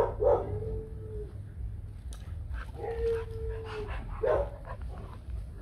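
White Bắc Hà dogs play-fighting: a short yip, then a whine held about a second, a second whine around three seconds in, and another yip or bark a little past four seconds.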